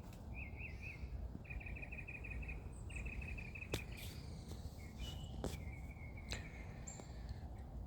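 A small songbird singing in quick runs of high, repeated chirps, over a low outdoor background rumble; a few sharp clicks come in the second half.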